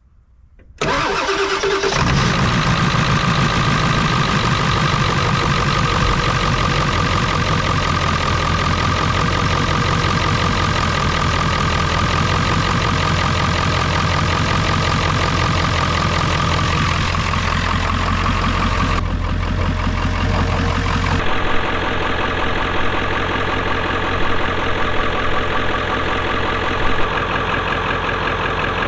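Ford 7.3 Powerstroke turbo-diesel V8 cold-started: a brief crank about a second in, catching almost at once, then idling steadily. The quick start shows the newly replaced glow plug relay has cured its cold-weather hard starting.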